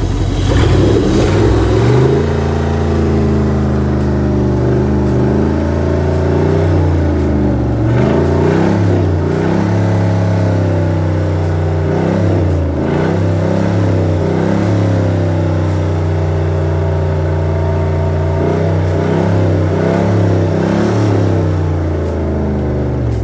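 Chrysler 318 V8 marine engine running on its first test fire after a rebuild. The revs climb in the first couple of seconds, then hold at a fast idle with a few brief dips and swells in speed, while the wet exhaust discharges its cooling water through the exhaust hose.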